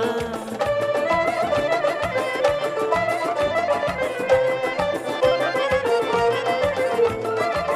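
Traditional-style folk music: an ornamented melody over a steady drum beat.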